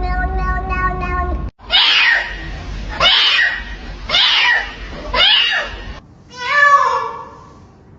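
Domestic cats meowing in a series of short clips. A long, drawn-out meow cuts off abruptly. Then come four short, raspy meows about a second apart, and a single clear meow near the end.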